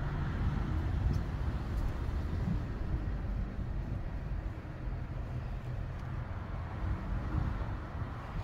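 Low, steady outdoor rumble of road traffic, with a faint engine hum running through it.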